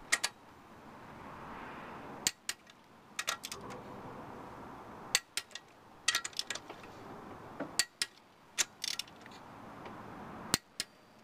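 Torque wrench being pulled on cylinder head bolts, the bolts being brought to 50 ft-lb on the second of three tightening passes. Sharp metallic clicks come in small groups every second or two.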